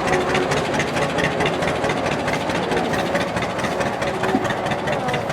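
An engine running steadily nearby, a fast even chugging over a low rumble.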